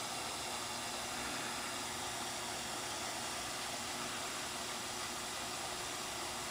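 Steady, even hiss with a faint low hum: a miniature reef aquarium's pump and water circulation running.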